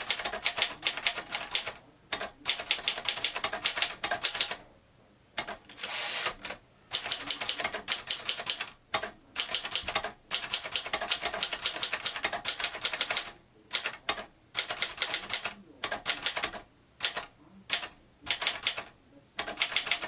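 1949 Moskva Model 2 portable manual typewriter being typed on steadily: fast runs of clacking key strikes broken by short pauses every second or so.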